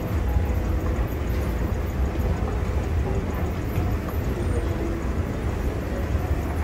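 KONE escalator running under a rider on the way down: a steady low rumble from the moving steps and drive, with a faint steady hum.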